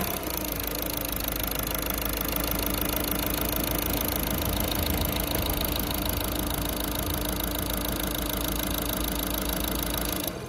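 Volkswagen 1.6 TDI (CAYC) four-cylinder common-rail diesel engine idling steadily with an even diesel clatter, the sound stopping abruptly near the end.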